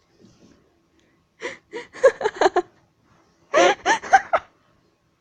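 A girl giggling in two short bursts of laughter, about a second and a half in and again near three and a half seconds.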